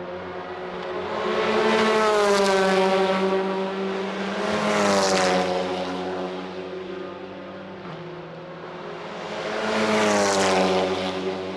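TCR touring cars with 2.0-litre turbocharged four-cylinder engines passing at racing speed, three of them in turn, about two seconds in, five seconds in and near the end. Each engine note rises as the car approaches and drops as it goes by, with a steadier engine sound from cars further away between the passes.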